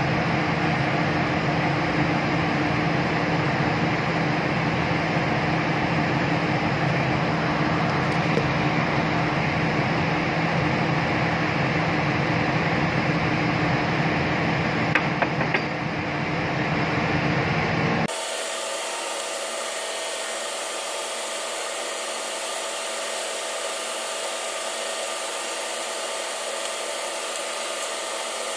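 Steady machine whir with a low hum under it. About two-thirds of the way through it switches abruptly to a thinner, higher whir.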